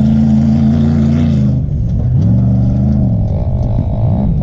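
2017 Polaris Sportsman XP 1000 ATV's twin-cylinder engine running under the rider, revs held steady for about a second and a half, then dropping and climbing again as it rides over the sand.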